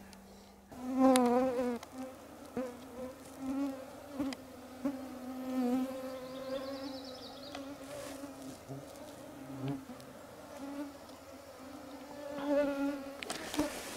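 A flying insect buzzing close to the microphone, its pitch wavering as it moves about, loudest about a second in; the buzz stops just before the end.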